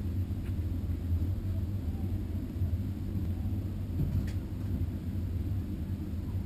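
A steady low rumble, with a faint click about four seconds in.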